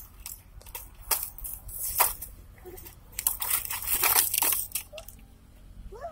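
Thin black plastic seedling trays crackling and clicking irregularly as they are bent, pulled apart and rubbed over dry leaf litter.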